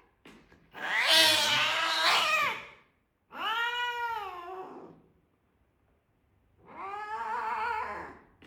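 A pet letting out three long, drawn-out yowls that rise and fall in pitch, the first the loudest and harshest, distress cries at being handled during a chiropractic adjustment.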